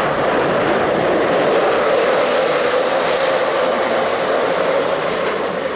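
Electric ice-racing car sliding through a corner close by: a loud, steady rush of studded tyres scraping the ice and spraying snow, with a steady motor whine underneath.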